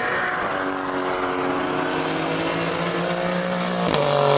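Renault R.S.01 GT race car's twin-turbo V6 accelerating, its engine note climbing steadily through a gear, then a sharp upshift drops the pitch near the end as it gets louder coming past.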